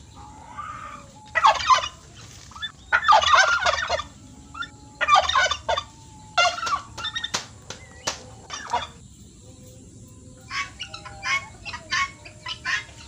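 Domestic fowl calling in several loud bursts of quick, pulsing calls during the first seven seconds, then shorter, quieter calls near the end, with a few sharp clicks in between.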